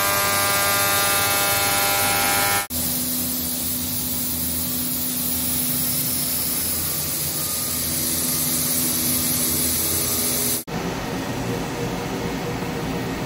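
Vertical CNC lathe running in the machine shop, a steady mechanical whine and hum, with abrupt cuts about 3 s and 11 s in where the sound changes character.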